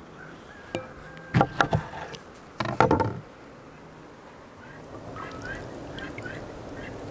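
Knife cutting through a lemon onto a wooden chopping board: two quick clusters of sharp knocks, about a second and a half and three seconds in.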